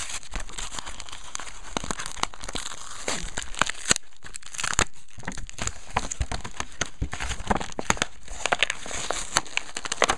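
Plastic blister packaging and foil booster-pack wrappers crinkling and tearing as they are opened by hand, a dense run of crackles and sharp clicks with a short lull about four seconds in.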